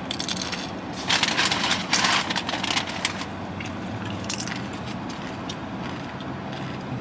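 Crunching of a tortilla chip being bitten and chewed close to the microphone, with a dense crackly burst for about two seconds and a few smaller crunches after.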